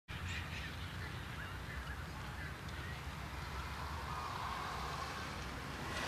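Faint waterfowl calls, a few brief honks, over a steady outdoor hiss and low rumble.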